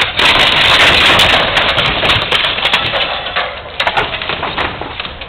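Mobile home's sheet-metal roof and wooden framing being torn apart: a long crunching, splintering rush with many sharp cracks. It is loudest over the first three seconds and then tails off.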